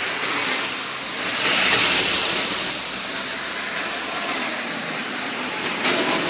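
Roadside traffic noise, swelling as a vehicle passes close by about two seconds in.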